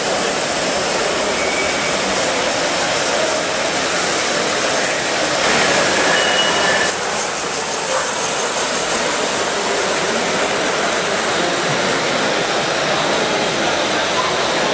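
Gauge 1 live-steam model of the LMS Turbomotive, a steam-turbine locomotive, running at speed on its track: a steady rushing of wheels on rail and turbine steam, loudest as it runs close by about five to seven seconds in.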